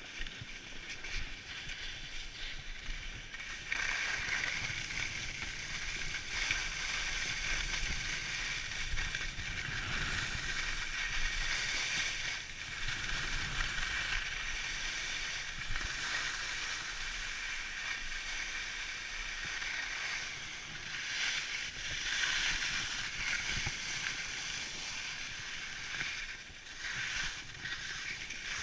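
Skis sliding and carving over packed snow: a steady hiss that starts about four seconds in and rises and falls with the turns, with wind rumbling on the microphone.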